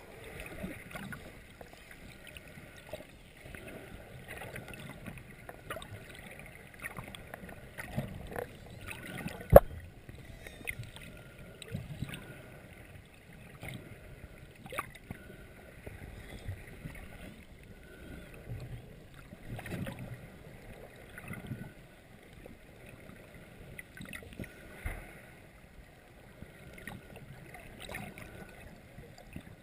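Muffled underwater sound picked up through a GoPro's waterproof housing: a low wash of water with scattered knocks and clicks against the housing, one sharp knock about ten seconds in.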